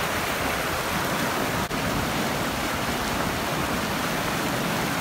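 Fast, cold mountain stream rushing over boulders in a strong current: a steady, loud rush of white water, broken by one momentary dropout a little under two seconds in.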